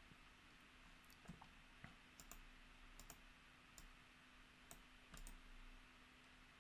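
Near silence with faint, irregular computer mouse clicks.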